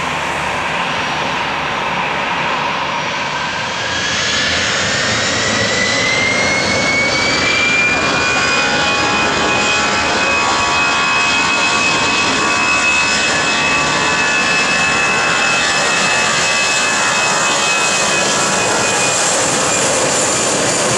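Airbus A320-family jet airliner's engines on the runway: a rushing jet roar, with a high whine that rises in pitch from about four seconds in and then holds steady and loud.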